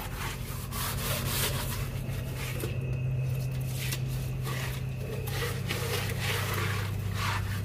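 Scouring pad scrubbing a soapy, wet metal floor in repeated back-and-forth strokes, over a steady low hum.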